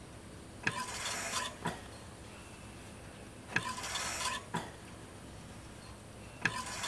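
Medical ventilator cycling, about one breath every three seconds. Each breath is a click, then a hissing whoosh of air lasting under a second, then another click. Two full breaths come in, and a third starts near the end.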